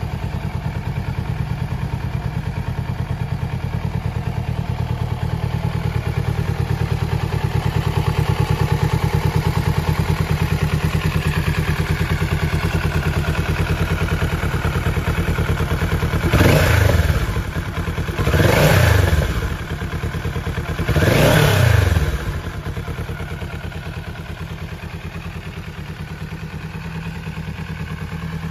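Kawasaki Z650RS's 649 cc parallel-twin engine idling steadily, with three short throttle blips just past halfway, each rising and dropping back to idle.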